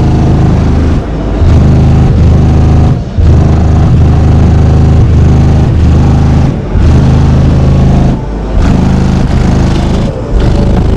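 Car audio system with four American Bass 15-inch subwoofers on 4000 watts playing bass-heavy music very loud. Deep bass notes hold and step in pitch, with short breaks every couple of seconds.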